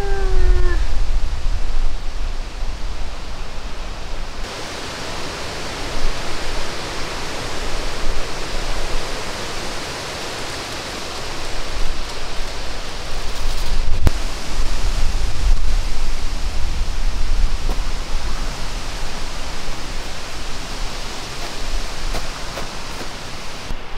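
Outdoor wind: a steady rushing noise with an uneven low rumble of wind buffeting the microphone, growing brighter after about four seconds. Right at the start a short call falls in pitch.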